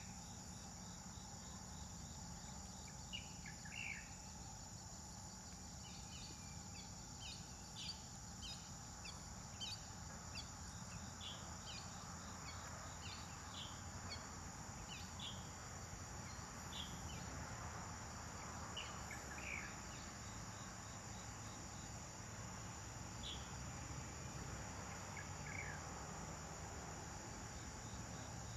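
Outdoor insect chorus droning steadily at a high pitch, with short high chirps scattered throughout.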